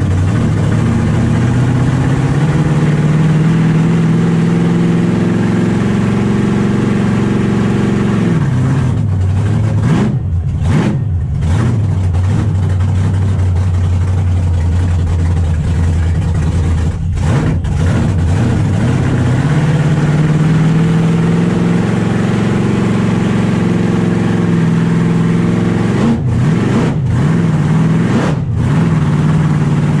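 Supercharged engine of a 1,700 hp burnout car, heard from inside the cabin while driving. The engine note climbs slowly for several seconds and falls back, holds steady, then climbs and falls again near the end.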